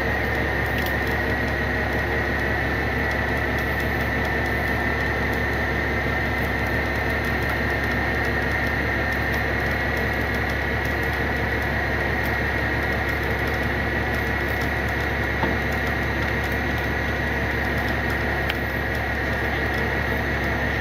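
Tow truck engine running steadily with its winch pulling under load, a steady low rumble with a steady high whine over it.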